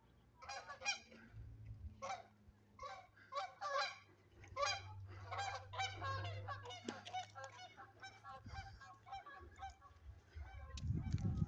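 A flock of birds calling, many short calls in quick succession and overlapping, with a low rumble starting near the end.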